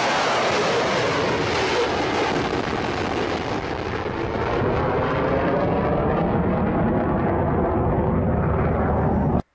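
Launch of a P-800 Oniks supersonic anti-ship missile: a loud, steady rocket roar that begins abruptly, loses its highest tones as it goes on, and cuts off suddenly near the end.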